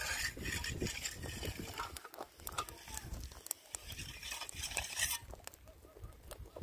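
A small wood fire under a kettle crackling as twigs are pushed in by hand, with scattered clicks and snaps. Wind rumbles on the microphone at times.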